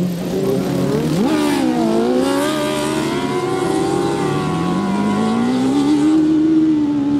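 Racing ride-on lawnmower engines running hard as they pass close on a dirt track. The engine pitch jumps sharply a little over a second in, dips, then climbs slowly again.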